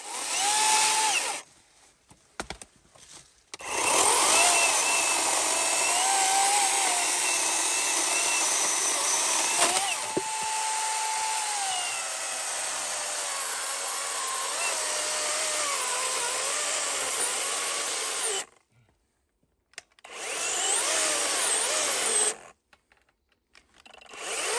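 Worx WG385E Nitro 40-volt battery chainsaw's electric motor whining as the chain cuts through a log. The whine sags and wavers under load and rises when the chain runs freer. The saw starts and stops several times: a short burst, one long cut, and two shorter runs.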